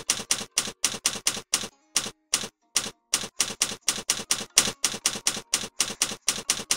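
Typewriter sound effect: rapid, even keystroke clacks, about five a second with a few short breaks, accompanying text typed onto a card on screen.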